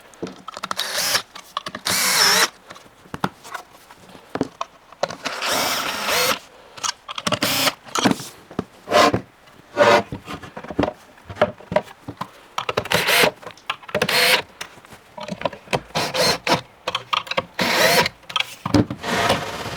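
Cordless power drill/driver running in short, repeated bursts while the fridge section of a flat-pack kitchen unit is assembled, mixed with knocks and clatter of the wooden panels and fittings.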